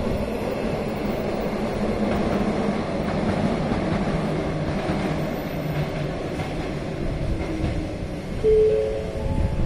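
Container freight train rolling away along the rails: a steady rumble of wagons on track. Near the end come a few short tones stepping up in pitch.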